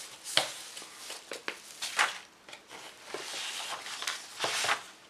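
Thin translucent wrapping sheet being handled, giving crinkling rustles with a few sharp light taps; the longest rustle comes between about three and five seconds in.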